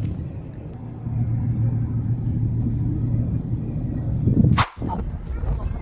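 Wind buffeting a phone's microphone, a steady low rumble. A brief knock about four and a half seconds in, followed by a short dip.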